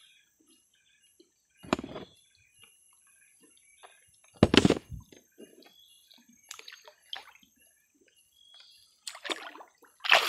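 Footsteps wading through shallow river water: a handful of separate sloshing splashes, the loudest about four and a half seconds in.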